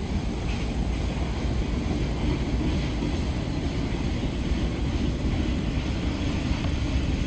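Freight train cars rolling past at a distance, making a steady low rumble of wheels on rail, with some wind noise on the microphone.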